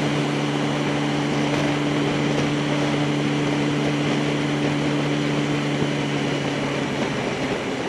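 Yamaha R1's inline-four engine running at steady revs while the bike cruises in slow traffic, with a constant rush of wind on the microphone.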